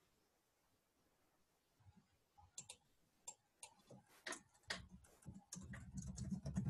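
Computer keyboard typing and mouse clicking: light, irregular clicks starting about two seconds in and getting busier. A louder, low muffled noise sits under the last second or so.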